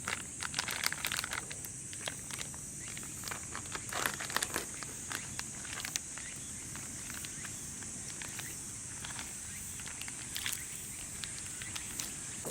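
Steady high-pitched chirring of night insects, with scattered faint clicks and crackles, most of them in the first few seconds.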